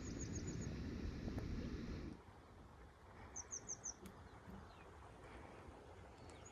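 Wind rumbling on the microphone, cutting off abruptly about two seconds in. A small bird gives short runs of four or five quick, high chirps, once at the start, most clearly about three and a half seconds in, and again at the very end.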